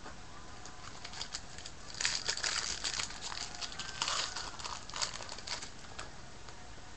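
Foil wrapper of a baseball card pack crinkling and tearing as it is ripped open by hand. It is a dense run of crackles from about two seconds in until about six seconds.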